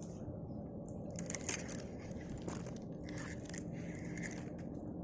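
Irregular small scrapes and crackles, like handling noise, over a steady low background noise.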